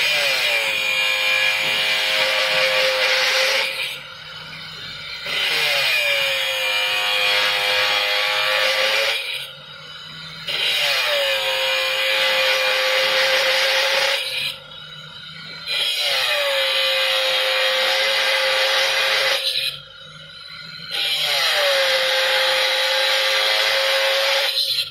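Angle grinder with a 4-inch abrasive cut-off wheel cutting through a stainless steel rod in a vise, five cuts one after another. Each cut begins with a falling whine as the wheel bites, then settles into a steady, loud grinding screech for about four seconds. A brief quieter gap falls between cuts.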